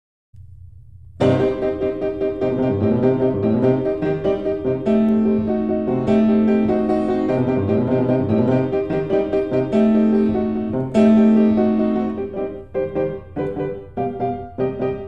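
Background piano music, coming in about a second in.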